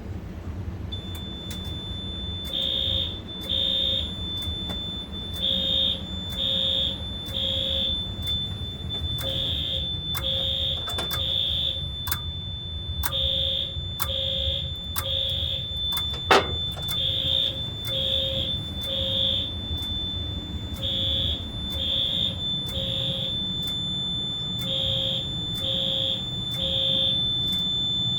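Fire alarm system in alarm after a smoke detector is set off: the notification appliances, including a 520 Hz low-frequency sounder, sound the temporal-three evacuation pattern, three half-second blasts about a second apart and then a pause, repeating. Under them a continuous high-pitched tone runs, starting about a second in. A single sharp knock comes midway.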